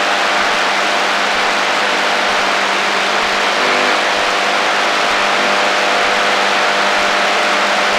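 Static from an AM radio tuned to the HF band: a steady loud hiss with several faint steady hums and whines in it, the sound of radio interference.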